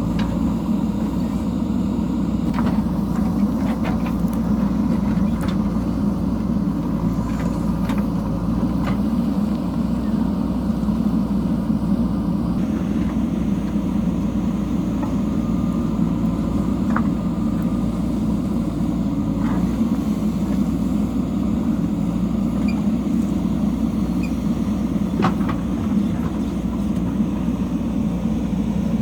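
JCB backhoe loader's diesel engine running steadily under work, with a few scattered clicks and knocks.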